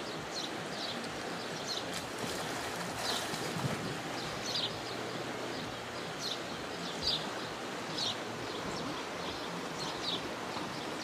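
Steady rush of river water with short bird chirps repeating every half second to a second, and a brief louder swell of water noise about three seconds in.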